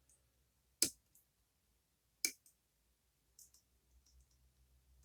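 Metal lock pick clicking against the pins in the keyway of a Goal Z pin tumbler lock. There are two sharp clicks about a second and a half apart, then a faint tick a second later.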